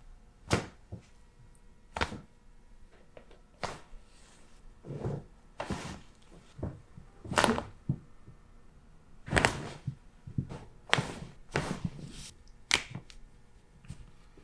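A series of about ten short, sharp cracks and pops, spaced irregularly: joints cavitating under chiropractic adjustments.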